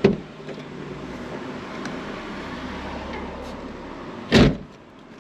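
Inside a parked car: a short knock at the start, then another car driving slowly past close alongside, with a low engine hum building up. About four seconds in comes a single loud, short thump.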